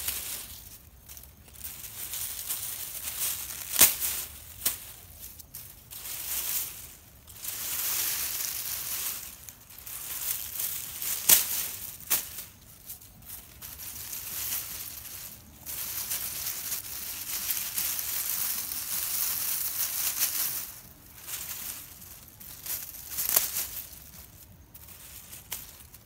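Grass thatch rustling and crackling as it is handled and pulled into place on a hut's frame, in uneven spells with a few sharp snaps.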